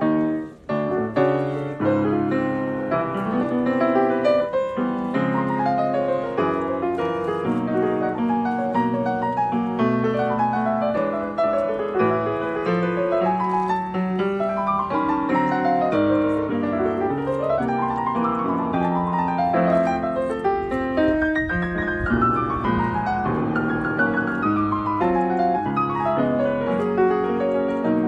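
Solo grand piano playing: chords under a melody, with quick runs of notes up and down the keyboard in the second half.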